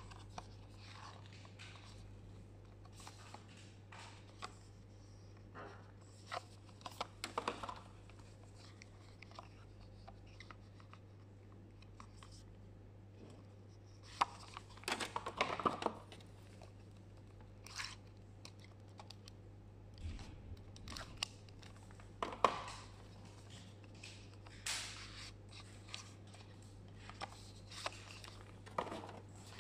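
Paperboard lash-box drawers slid out of and back into their sleeves and handled: short dry scrapes and light taps of card, busiest about halfway through. A low steady hum runs underneath.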